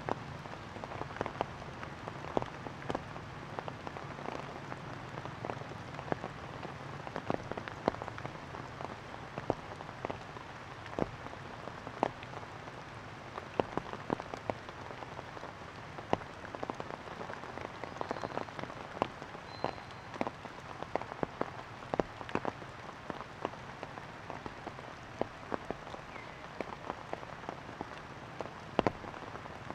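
Rain falling, with irregular sharp drops hitting nearby surfaces over a steady hiss.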